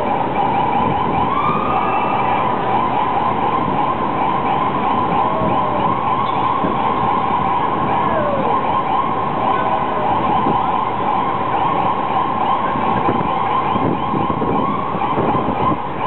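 Ambulance siren sounding continuously, stuck in heavy city traffic, over a steady din of street traffic.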